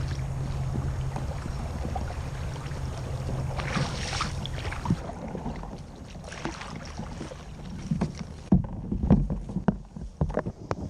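Kayak paddling in a shallow creek: paddle strokes swish through the water over a steady low rumble, then in the last couple of seconds come a run of irregular knocks and thumps.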